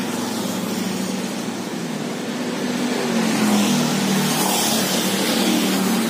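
Street traffic: a steady road noise, with a vehicle engine passing that grows louder about halfway through.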